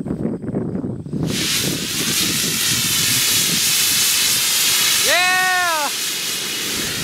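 Foot-long sugar-propellant (rocket candy) motor of about 450 grams firing in a static test: it lights about a second in with a sudden loud hiss that holds steady for about six seconds, easing slightly near the end. A short whooping tone rises and falls about five seconds in.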